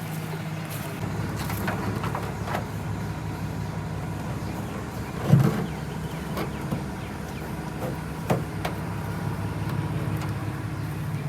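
A motor vehicle's engine idling steadily, with scattered clicks and a single louder knock about five seconds in.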